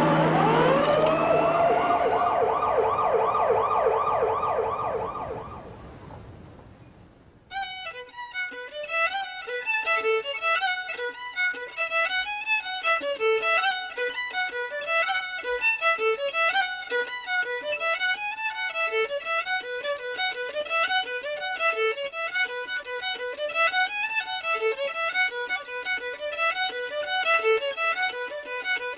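A loud pitched sound with a falling glide and a fast pulsing tone fades away over the first several seconds. About seven and a half seconds in, a fast fiddle tune starts suddenly, a quick repeating figure of notes that carries on.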